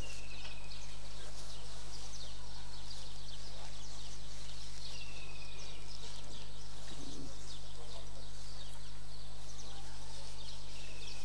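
Steady electrical hum from an amplified sound system, with many faint, short high chirps and ticks over it. A short falling chirp comes three times, about five seconds apart.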